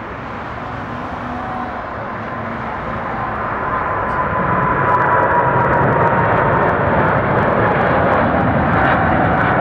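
Jet aircraft engines passing by: a broad rushing noise that grows louder over the first half and then holds, with an engine whine that slowly drops in pitch.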